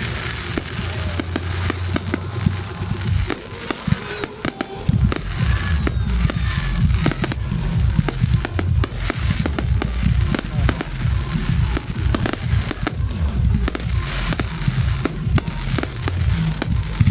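Fireworks display: aerial shells bursting in quick succession, sharp bangs over deep booms. The barrage thickens into a dense, continuous volley about five seconds in.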